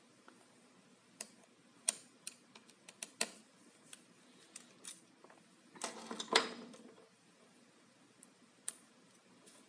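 Scattered light clicks and taps from small parts being handled inside a computer, with a short stretch of rustling and a sharper click about six seconds in.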